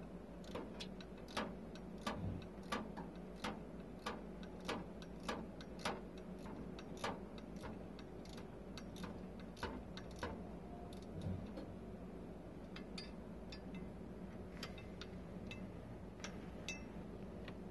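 Ratcheting wrench clicking faintly as it runs a nut onto the bolt at the flange joining the front and rear exhaust sections: a light click about every two-thirds of a second, thinning to scattered clicks after about ten seconds.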